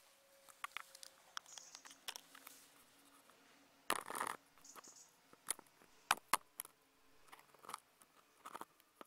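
Scattered sharp clicks and ticks at irregular intervals, with one louder short rustle about four seconds in.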